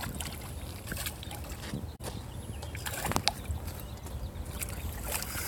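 Water sloshing and splashing from a hooked bass being played at the bank. Scattered clicks run through it, with a sharp tap about three seconds in.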